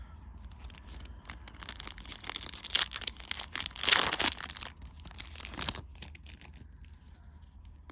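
A foil trading-card booster pack being torn open and its wrapper crinkled: a run of ripping and crackling that builds to its loudest about four seconds in and dies away by about six seconds.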